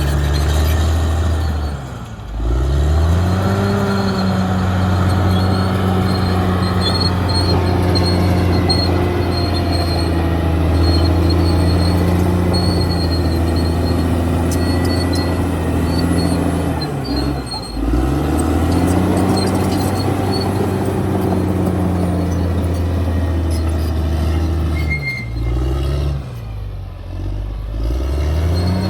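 Caterpillar D6R XL bulldozer's diesel engine running hard. Its pitch drops and climbs back about two seconds in, again a little past halfway, and over a few seconds near the end.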